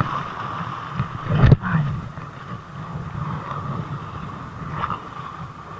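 Rumbling handling noise on a close, moving camera microphone while a small snapper is brought in over the rocks, with one sharp knock about one and a half seconds in.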